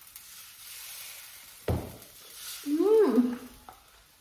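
A woman's closed-mouth hum of approval while tasting, a short 'mmm' that rises then falls, a little past the middle, after a sudden knock. Faint sizzling of dosa batter on a hot griddle runs underneath.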